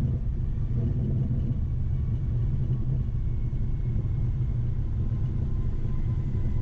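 Cockpit noise of a Cessna Citation XLS business jet: a steady low rumble with a faint high whine.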